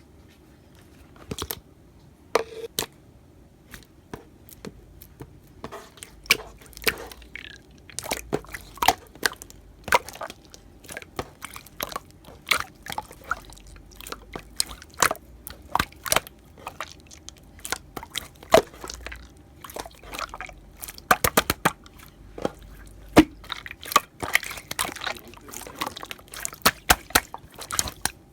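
Very sticky clear slime being pressed, stretched and squished by hand, giving irregular wet clicks and pops. The clicks are sparse at first and come thick and fast from about six seconds in.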